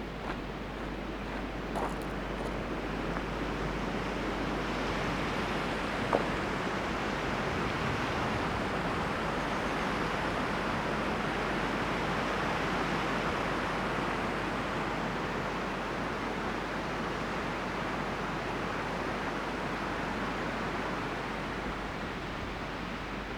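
Wind blowing in a steady rush, swelling into a stronger gust around the middle and easing off toward the end, with one sharp click about six seconds in.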